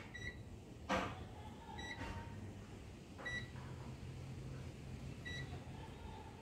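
Digital multimeter set to audible continuity mode giving four short high beeps, spread over a few seconds. A sharp click about a second in.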